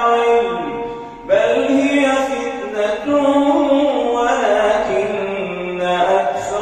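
A male imam chanting a Quran recitation in long, melodic drawn-out phrases into a microphone. His voice fades out about a second in, then he begins a new phrase loudly.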